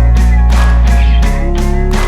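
Background rock music with electric guitar, a steady driving beat and a held bass line that shifts down about a second and a half in.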